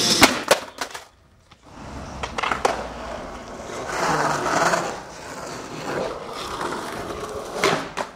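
Skateboard on concrete: a few sharp clacks of the board hitting the ground in the first moment, then rolling wheel noise, and more clacks near the end.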